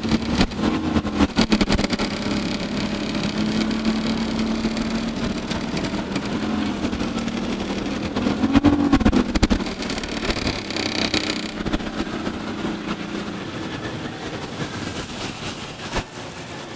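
A motorboat engine running steadily at speed, its pitch briefly dipping and rising twice, then fading away near the end.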